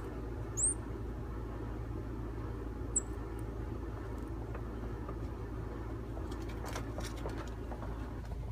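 A small bird giving short, high chirps, twice, about half a second and three seconds in, over a steady low rumble.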